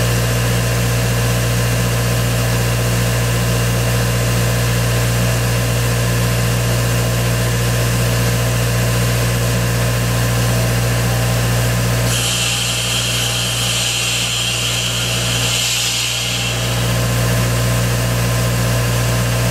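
Pneumatic (compressed-air-driven) explosion-proof vacuum unit running with a steady low drone. About twelve seconds in, a loud rush of air hiss joins it for roughly five seconds while the drone dips, then the steady running resumes.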